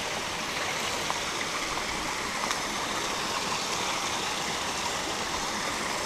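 Small waterfall: water pouring from a dragon-head spout in the rock face and running down over rocks as a shallow stream, a steady rushing splash.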